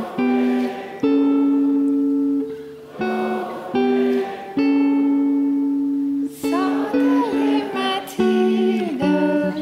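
Guitar playing a slow line of held notes, each struck sharply and left to ring out before the next. About six and a half seconds in, wavering, sliding sung notes join in.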